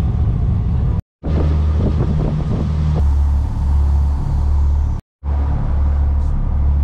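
Boat engine running with a loud, steady low drone, heard inside the wheelhouse. The sound cuts out abruptly for a moment twice, about a second in and about five seconds in.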